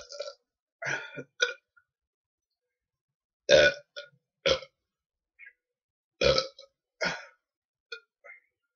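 A person belching: a string of short burps forced up after gulping carbonated Dr Pepper. The loudest come about three and a half and six seconds in, and smaller ones trail off near the end.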